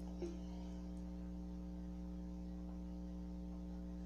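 Steady low electrical mains hum, with a faint click just after the start.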